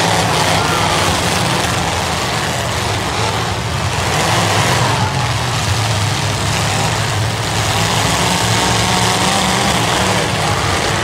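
Several demolition derby cars' engines running and revving together in a steady low drone, with the pitch wavering as the cars push and ram each other.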